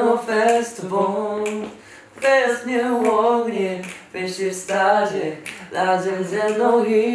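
Young men's voices singing a cappella together in held, melodic phrases, with finger snaps keeping time.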